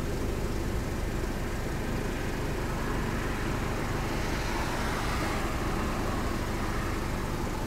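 Car driving, with steady engine and road noise.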